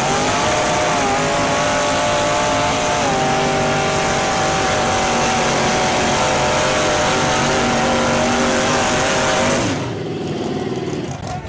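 High-horsepower truck engine held at high revs with its tyres spinning on concrete, a steady hiss over the engine note. The pitch dips slightly about three seconds in, then falls and drops away suddenly near the end.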